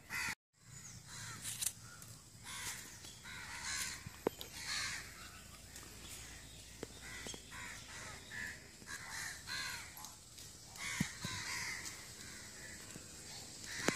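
Crows cawing, many short calls one after another throughout.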